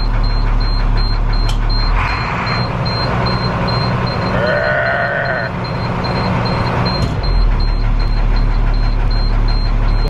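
School bus diesel engine running at idle. Its speed rises about two seconds in and drops back to idle about five seconds later, as when building air pressure for the brakes.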